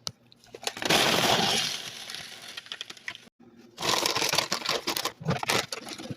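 Dry crackling and rattling handling noise with scattered sharp clicks, in two spells broken by a short gap: unpopped popcorn kernels and their packaging being handled while the popcorn is prepared.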